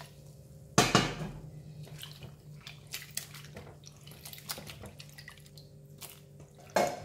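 Hands swishing and rubbing sliced bitter gourd in a glass bowl of water, with small splashes and drips, to rinse off the salt that was rubbed in. Two sharper, louder sounds come about a second in and near the end.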